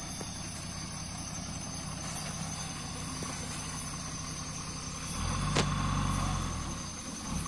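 Off-road 4x4 engine idling, then running louder for about two seconds from around five seconds in, with a sharp click partway through.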